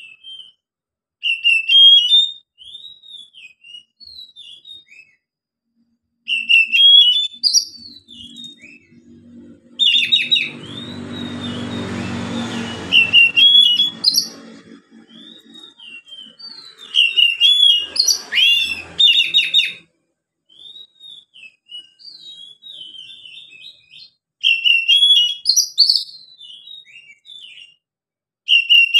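Caged oriental magpie-robin singing freely in full voice: loud whistled phrases in bursts of a second or two, separated by short pauses and softer twittering. Around the middle a quieter low hum swells and fades under the song.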